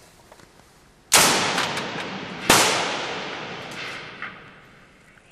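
Two shots from a Sig 550 (Stgw 90) rifle in 5.56 mm, about a second and a half apart. Each shot rings on in the underground range for well over a second as it fades.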